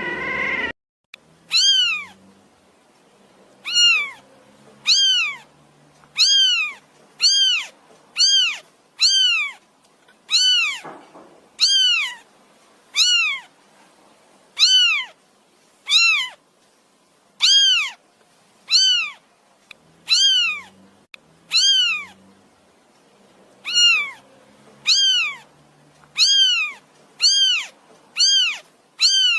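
A cat meowing over and over: short, high-pitched meows that rise and fall, about one a second, with a brief pause about two-thirds of the way through.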